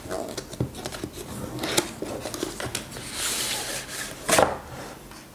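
Cardboard packaging being handled, its inner tray sliding out of the paperboard sleeve: scraping and rustling of card with a few sharp taps, the loudest about four seconds in.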